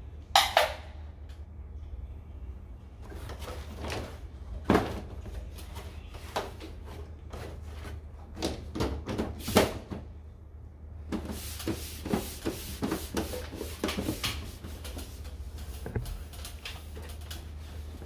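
Sharp plastic clicks and knocks from handling and shutting the split air conditioner's hinged front panel, then a quick run of rubbing strokes from a cloth wiping down the plastic casing.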